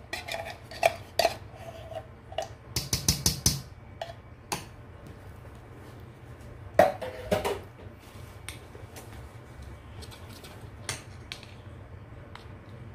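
Metal spoons clinking and scraping against a stainless steel mixing bowl as batter is stirred: scattered taps, with a busier run of knocks about three seconds in and another around seven seconds.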